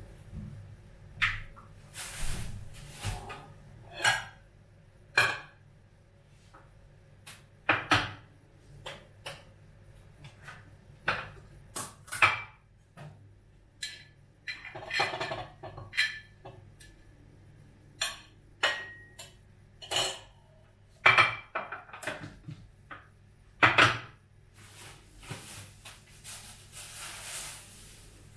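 Dishes and cutlery being handled: irregular clinks and knocks of plates and utensils set down and moved about, a few ringing briefly.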